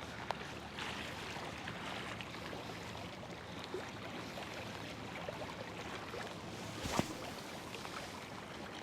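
Steady rush of river current running past a rocky bank, with a single knock about seven seconds in.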